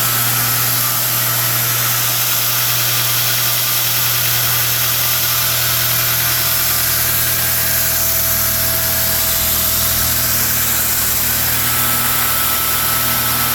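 Belt grinder running steadily under its electric motor, the abrasive belt spinning with a low hum, a faint steady whine and a constant hiss.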